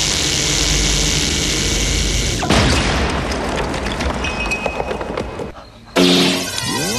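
Movie sound effects: a steady whirring hum that cuts to a sudden boom about two and a half seconds in, followed by crackling that fades away. Near the end a new effect starts, with swooping tones.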